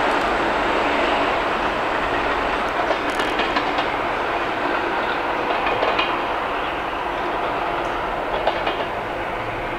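New York City subway train running along open track, heard from inside a car: a steady rumble of wheels on rail with scattered clicks as the wheels cross rail joints, easing off slightly toward the end.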